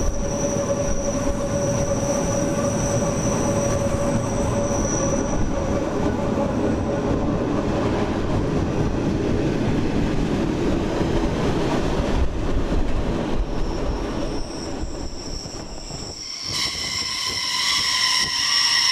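Rhaetian Railway narrow-gauge train running into a station, the wheels squealing on the rails over steady running noise. Near the end a steady high whine of several tones sets in.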